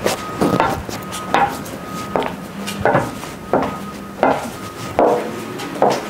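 A woman's high-heeled shoes clicking on stone paving and tile as she walks at a steady pace, about three steps every two seconds.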